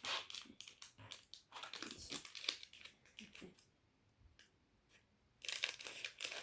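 Plastic packaging bag crinkling and rustling as it is handled and opened, with a quiet pause of under two seconds past the middle before the crinkling starts again.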